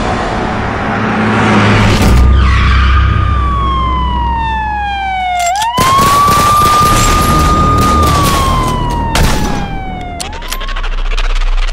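Sound effects: a police siren wailing, its pitch sliding slowly down, then back up and holding, then down again, over a low rumble that cuts off midway. A rushing noise opens, and sharp gunshot cracks come around the middle and again near the end.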